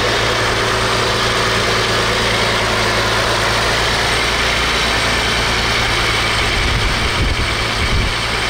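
Supercharged Toyota 4.0-litre V6 with a Magnuson supercharger idling steadily under the open hood; the low rumble turns uneven in the last couple of seconds.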